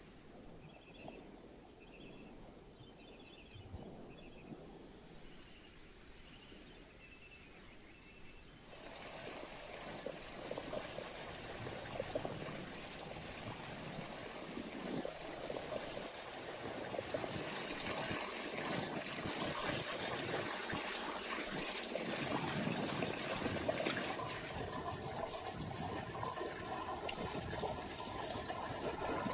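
Quiet open air with a few faint high chirps, then about nine seconds in a steady rush of running water begins and grows louder: water pouring from a stone spring spout.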